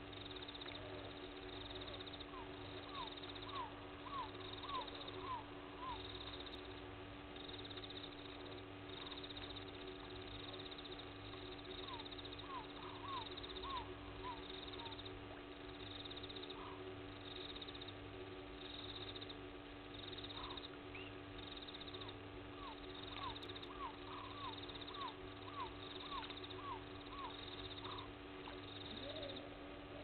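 Night-time animal chorus: a steady drone with a regular pulsing beat, over which an unseen animal gives runs of short rising calls, about two or three a second, in three bouts.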